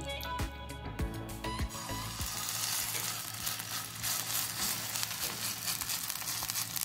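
Background music for about the first two seconds, then bottle-gourd thalipeeth dough sizzling in hot oil on a tawa as it is pressed flat by hand: a steady, even hiss.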